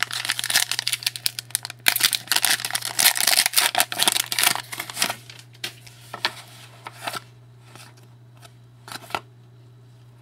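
Trading card pack wrapper crinkling as it is torn open, dense and crackly for about five seconds, then a few short rustles and clicks as the cards are handled. A faint steady electrical hum runs underneath.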